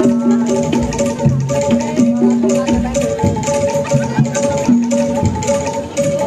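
Live jaranan music: drums and percussion keep a steady beat while held pitched notes play a repeating melody over them.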